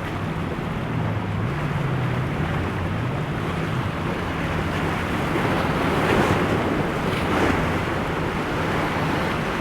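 Boat engine running, its pitch rising and falling, over a steady rush of surf and wind noise on the microphone. About halfway through, the engine fades and waves break louder.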